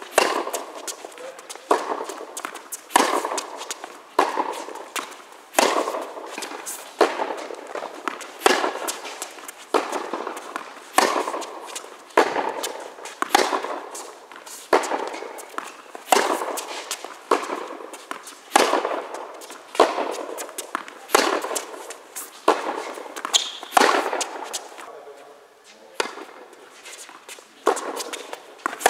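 Tennis balls struck with rackets and bouncing on the court during a baseline rally. Sharp pops come about every one to two seconds, each ringing on in the hall's echo, with a short pause near the end.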